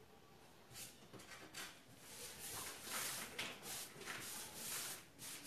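Repeated rubbing strokes on a painted wooden tabletop: irregular hissing swipes, sparse at first and denser and louder from about two seconds in.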